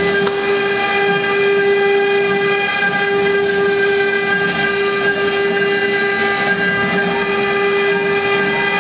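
CNC wood router spindle running with a steady high-pitched whine as a fine engraving bit carves relief into a wooden board.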